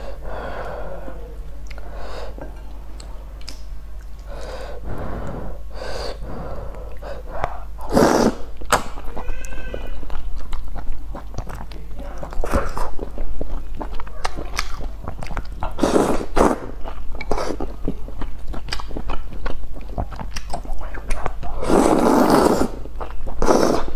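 Close-up eating sounds of a person slurping and chewing instant noodles in broth: small wet mouth clicks and chopstick taps throughout, broken by three loud slurps, the longest and loudest near the end.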